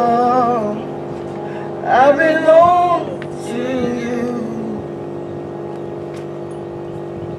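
A sustained instrumental chord held steady under a few short, wordless sung phrases from a vocalist, with the chord ringing on alone for the second half as a worship song winds down.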